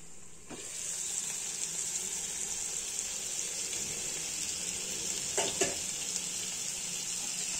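Drumstick, brinjal, onion and tomato pieces sizzling steadily in hot oil in a pan, the sizzle starting with a light knock as the glass lid comes off. Two faint taps about five seconds in.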